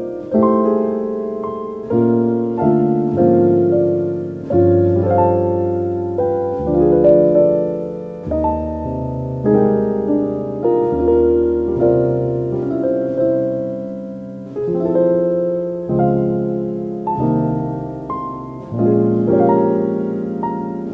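Piano music: chords and single notes struck and left to die away, about one to two a second.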